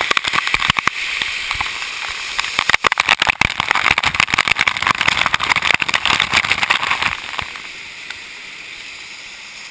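Waterfall water pouring and splashing close to the microphone, with many sharp splashes and crackles. It drops to a quieter, steadier rush about seven and a half seconds in.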